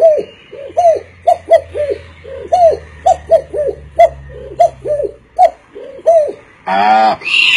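A man imitating a dove's cooing with his voice: a run of short, low, hooting coos in quick succession, two or three a second. Near the end a longer, fuller vocal call begins.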